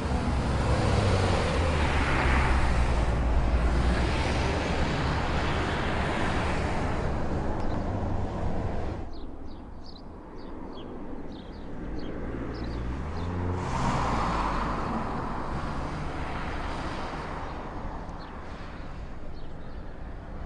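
A camouflaged Mazda SKYACTIV test sedan driving past on a track: its engine and tyres run loud at first, then die away about nine seconds in. Later the car comes by again with the engine note rising as it accelerates, and it fades out near the end.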